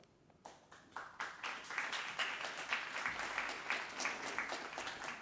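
Audience applauding: a few claps about half a second in, building quickly to steady applause, thinning out near the end.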